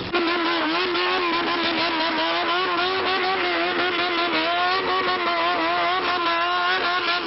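Several engines revving together, as from a bosozoku gang's modified bikes and cars. Their pitch rises and falls unevenly as throttles are worked, with crackles over the top. The sound starts abruptly.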